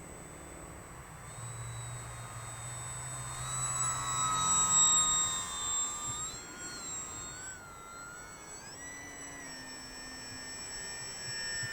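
Electric motor and propeller of a Volantex Saber 920 RC aerobatic plane whining in flight. The pitch rises and falls with the throttle, and the sound is loudest about five seconds in.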